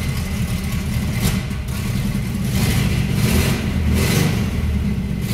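ZAZ-968M's air-cooled V4 engine running and revved a few times on the accelerator pedal, the revs swelling and dropping back between about one and four and a half seconds in.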